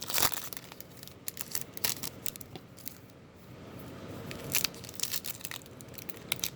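Baseball trading-card pack wrappers being torn open and crinkled by hand, with irregular sharp crackles and rips.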